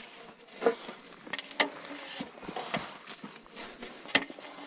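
Scattered, irregular clicks, taps and rustling, with a sharp knock near the end: hands at work with tobacco seedlings and their plastic trays.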